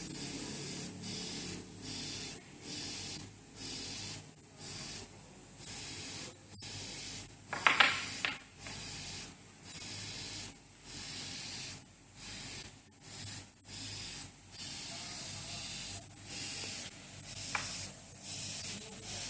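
An airbrush spraying paint in short on-off spurts of hiss, about one every three-quarters of a second, as the trigger is worked for fine detail lines. A brief sharper sound about eight seconds in is the loudest moment.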